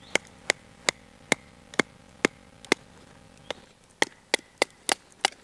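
A wooden baton knocking on the spine of a flat-ground Blind Horse Knives Bushcrafter knife to split firewood. There are about a dozen light, sharp knocks at roughly two a second, with a short pause a little past the halfway point.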